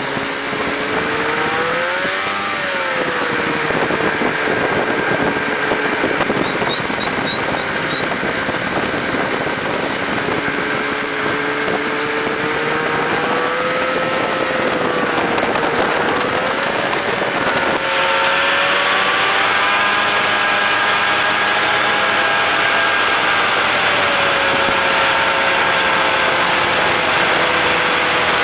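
600cc snowmobile engine driving a mini buggy, running under way, its pitch rising and falling with the throttle: a short rise about two seconds in and another about halfway through, over a steady rush of wind and road noise.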